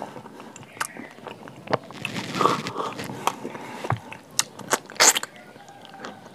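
Close-up eating sounds: a person biting and chewing crunchy food, with scattered sharp crunches and mouth clicks, the loudest crunch about five seconds in.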